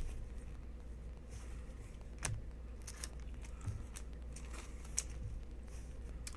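Trading cards, plastic card holders and foil card packs being handled: a few light clicks and crinkles over a low steady hum.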